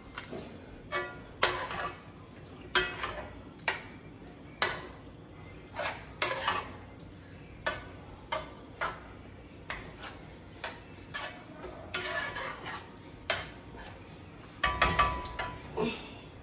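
A spoon stirring thick ground-meat spaghetti sauce in a large nonstick pan: irregular clinks and short scrapes against the pan, with a denser, louder clatter near the end.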